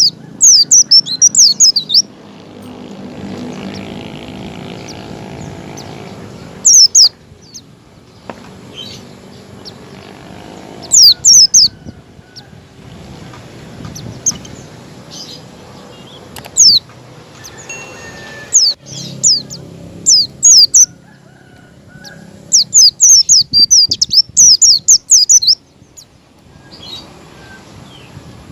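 White-eyes (pleci) calling: clusters of quick, high, thin falling notes, in bursts every few seconds, over a steady low background hiss.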